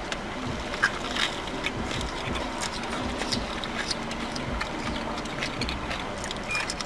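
Someone chewing and eating, with small scattered mouth clicks, over a steady low background rumble.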